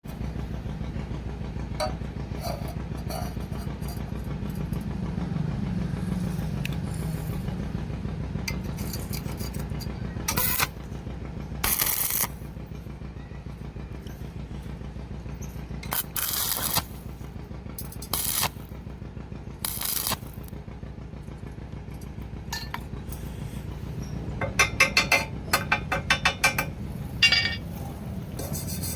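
Steady low electrical hum with several short bursts of stick-welding arc hiss, like quick tack welds, and a run of sharp metallic clicks near the end.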